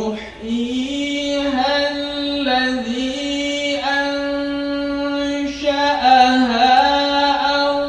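A man reciting the Quran in the melodic tajweed style, drawing out long held notes with ornamented turns in pitch, with a brief break about five and a half seconds in.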